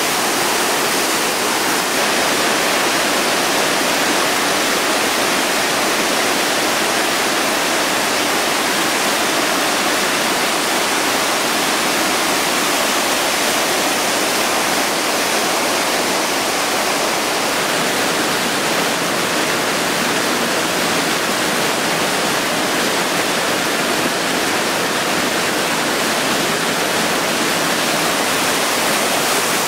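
Whitewater river running high over boulders: a steady, loud rush of rapids with no let-up.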